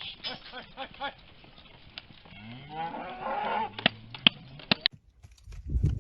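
A cow mooing: one long, low moo that rises in pitch, with fainter calls before it. A few sharp clicks follow, and then a low rumble near the end.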